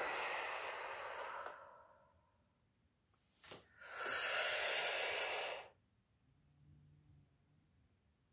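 Deep, forceful breathing through the mouth as a breathwork exercise: a long breath blown out through pursed lips that fades about a second and a half in, a quick short breath about three and a half seconds in, then another long, loud breath lasting about two seconds.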